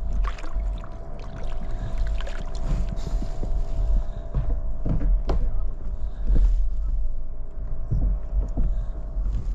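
Wind and sea water rumbling against a fishing kayak, with scattered knocks. A faint steady hum runs underneath and stops shortly before the end.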